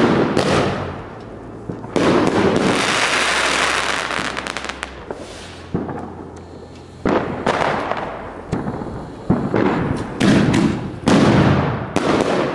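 Consumer aerial fireworks (cakes and shells) bursting overhead: about a dozen loud bangs, each trailing off over a second or so. There is a run of crackling about four seconds in, and the bangs come faster in the second half.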